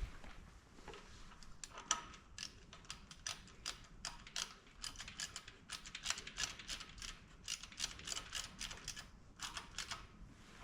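Hand ratchet wrench clicking in quick runs of strokes as a bolt is turned.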